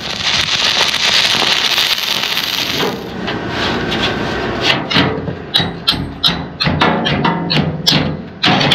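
Stick-welding arc crackling and hissing for about three seconds as a tack weld is laid on steel plate, followed by a run of sharp hammer strikes on the steel.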